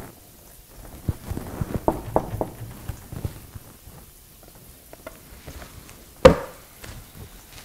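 A rubber party balloon being handled in the hands: a run of short squeaks and taps for about two seconds, starting a second in, then one louder single knock about six seconds in.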